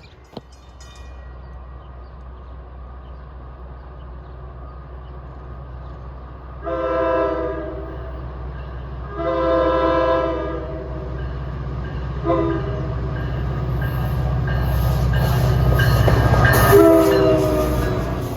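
A diesel-hauled train approaching and passing, its locomotive horn sounding a chord of several notes in a long, long, short, long pattern, the standard grade-crossing signal. The engine rumble grows louder as it nears, peaking with the last long blast.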